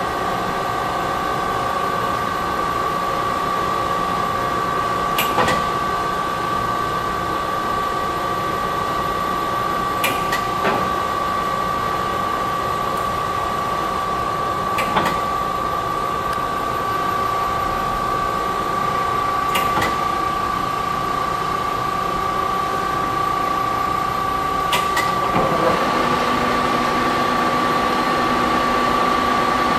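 Warner & Swasey No. 5 ram-type turret lathe running with a steady whine and hum, with a sharp click about every five seconds. Near the end the sound changes: it grows noisier and a lower tone joins in.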